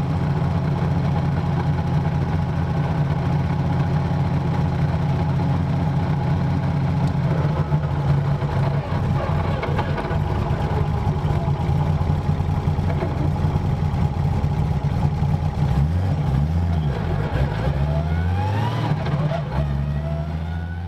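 Car engine running at steady revs, its pitch swinging up and down in revs over the last few seconds.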